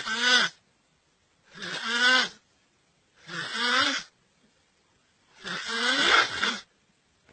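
A person snoring: four loud snores about every second and a half to two seconds, each rising in pitch, the last one the longest.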